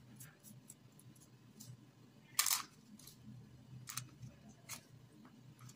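Light clicks and scrapes of a small plastic spoon against a plate and a paper cupcake liner as crumbly dough is scooped into the liner, with one louder, longer scrape about two and a half seconds in and a few sharper clicks after it.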